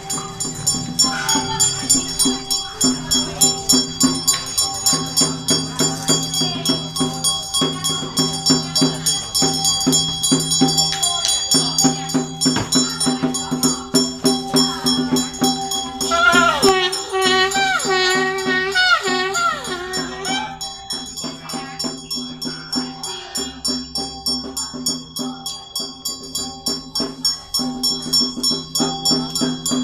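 Chinese temple ritual music: a steady beat of about two strokes a second with rattling, jingling percussion and ringing metallic tones over a low sustained drone. A wavering high melody line rises over it for a few seconds about halfway through.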